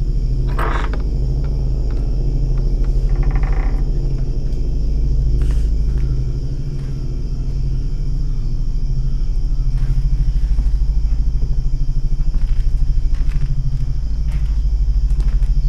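Low, steady, ominous rumbling drone from a horror film score, with a fine pulsing texture and a few brief faint noises over it near the start.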